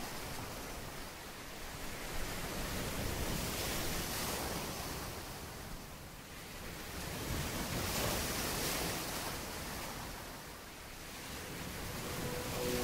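Rushing shoreline ambience of waves and wind, swelling and fading every few seconds. Soft music fades in near the end.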